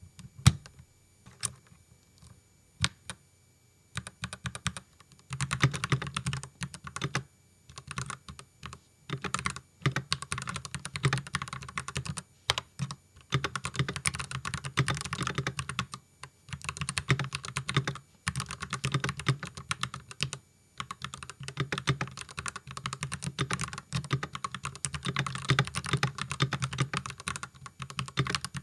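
Typing on a Keychron V5 mechanical keyboard with Gateron Yellow linear switches and pudding keycaps. A few single keystrokes come first, then fast, steady typing from about four seconds in, broken by short pauses.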